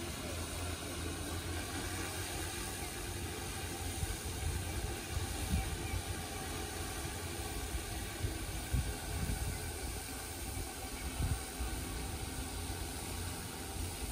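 Hexacopter drone's six motors and propellers (DJI E2000 propulsion system) hovering with a steady, even hum made of many layered tones over a breathy hiss, broken by a few brief low rumbles.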